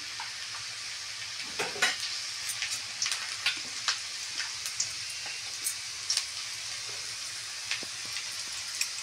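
Garlic cloves frying in hot oil in a kadhai: a steady sizzle with scattered pops and crackles, loudest about two seconds in. This is the tempering stage, with the garlic frying until it turns light golden.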